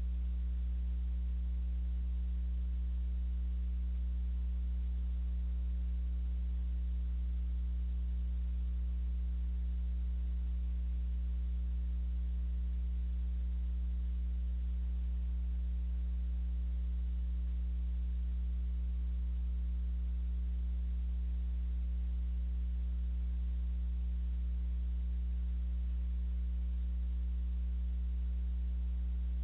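Steady low electrical hum with a buzz of evenly spaced overtones, unchanging throughout, picked up in an IP security camera's audio.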